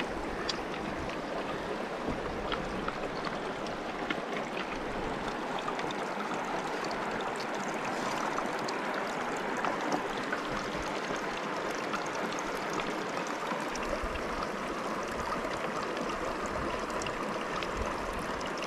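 Stream water running over rocks, a steady rush, with scattered small clicks and knocks as stones are shifted by hand.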